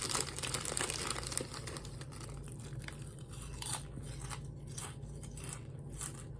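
Ruffles ridged potato chips being bitten and chewed close to the microphone: irregular dry crunches, dense in the first couple of seconds, then sparser.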